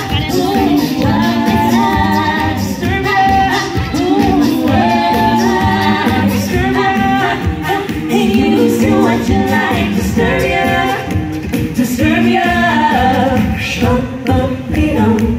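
A cappella vocal group of male and female voices singing in harmony into microphones over a sound system.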